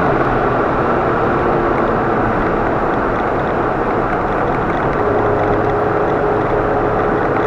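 Car driving at speed: steady road and engine noise, with a steady engine tone coming in about five seconds in.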